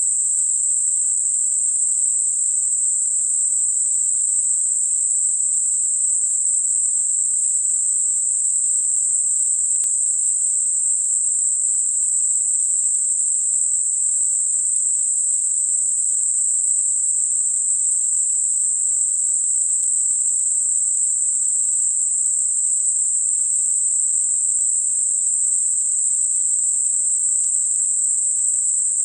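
Synthetic Gaussian narrow-band noise centred at 8 kHz, a steady, even high-pitched hiss with nothing lower beneath it, made as a masker for high-frequency tinnitus.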